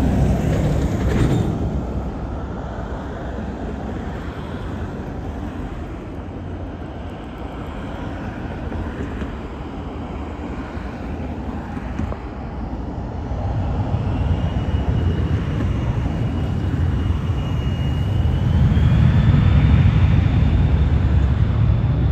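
Cessna Citation Latitude's twin rear-mounted turbofan engines running with a steady low rumble. From about two-thirds of the way through, a thin turbine whine rises in pitch and the rumble grows louder as the engines spool up for take-off.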